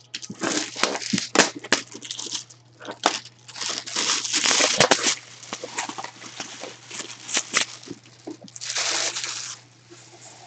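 Plastic shrink-wrap being torn and peeled off a cardboard box, crinkling and crackling in quick irregular rustles, loudest about halfway through and again near the end, over a faint steady low hum.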